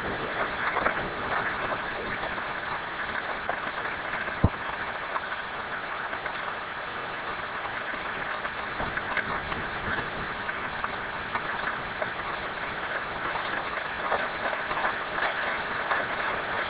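Heavy rain pouring steadily on foliage and wet paving, with one sharp click about four and a half seconds in.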